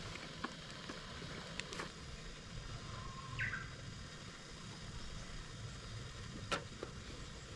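Japanese bush warbler (uguisu) singing once about three seconds in: a held whistle, then a quick rising flourish. A few sharp clicks, the loudest near the end, sound over a steady low background noise.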